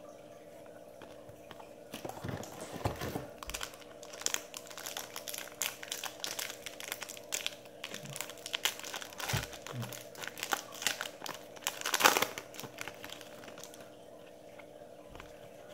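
Trading-card pack wrapper crinkling as it is torn open, then cards rustling and clicking against each other as they are handled, in a run of irregular crackles that is loudest near the end.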